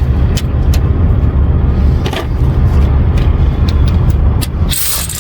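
Steady low rumble of an idling diesel truck engine, with a few light clicks and a short hiss near the end.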